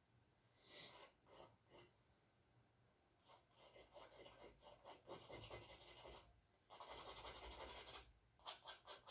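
Charcoal drawn across canvas, faint and scratchy: a few short strokes, then a run of quick strokes, about a second of continuous scraping, and more short strokes near the end.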